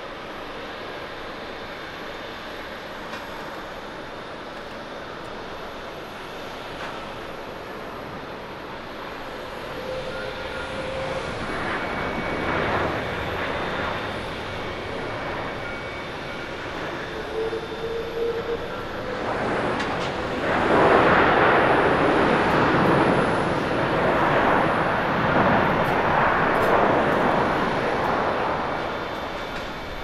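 Airbus A330-343 jet airliner with Rolls-Royce Trent 700 engines landing and rolling out along the runway. The engine noise is a steady rumble at first, swells partway through, and grows to a loud roar for the last third before easing off near the end.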